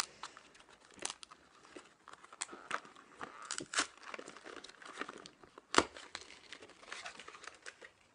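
Everlasting Gobstopper candy packet being torn open and crinkled by hand: irregular crackles and tearing, with one sharp, louder click about six seconds in.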